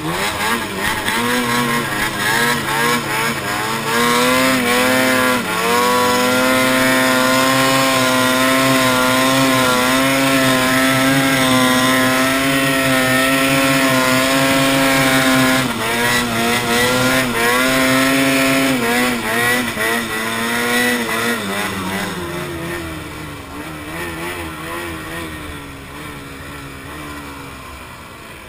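Ski-Doo snowmobile engine running hard at high revs as the sled climbs a snowy slope, its pitch holding high and wavering slightly with the throttle. About three quarters of the way through it eases off, dropping in pitch and loudness.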